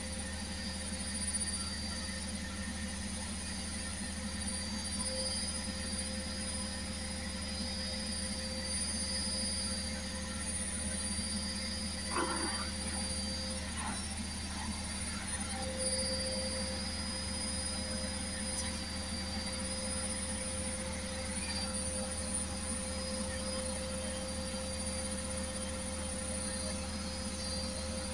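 Beko washing machine running: a steady low hum with a constant high whine and no change in speed.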